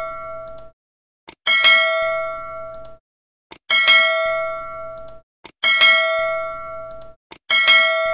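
Notification-bell sound effect: a short click, then a bright bell ding that rings out and fades over about a second, repeated about every two seconds.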